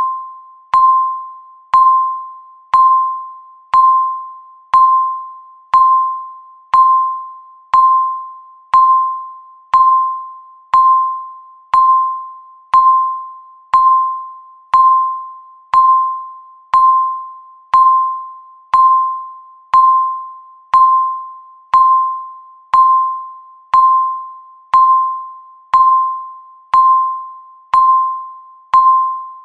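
Countdown timer beep sounding once every second: a single clear mid-pitched tone that starts sharply and fades away before the next one, about thirty in a row at a perfectly even pace.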